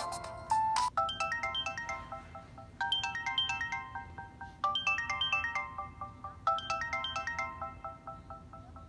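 Samsung Galaxy S2 LTE ringtone playing: a short melodic phrase of quick, bright notes that repeats about every two seconds, four times, after a brief held tone in the first second.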